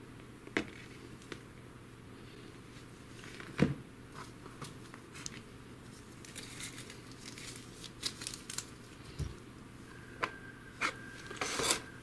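Small clicks and rustles of lithium-ion battery packs, their plug and multimeter probes being handled on a tabletop, with one louder knock a few seconds in and a quick rustle near the end.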